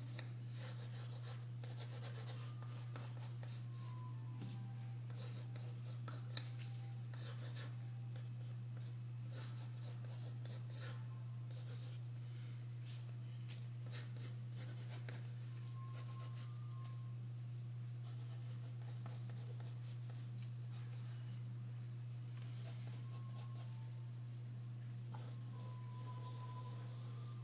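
Pencil sketching on drawing paper: short strokes come in irregular runs, over a steady low hum.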